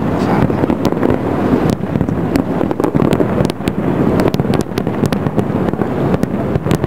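Fireworks display with many shells bursting, heard as a steady rumble dotted with sharp pops and crackles.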